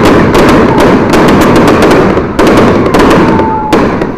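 Fireworks and firecrackers going off in a dense, loud barrage of overlapping bangs and crackling, with a short whistle near the end.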